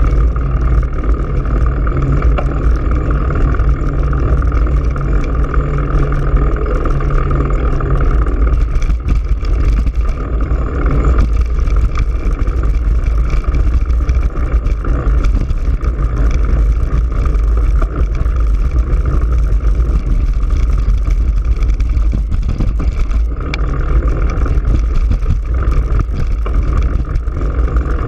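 Steady, loud wind rumble on the microphone of a GoPro Hero3 riding on a moving bicycle, with the hiss of rolling along the road.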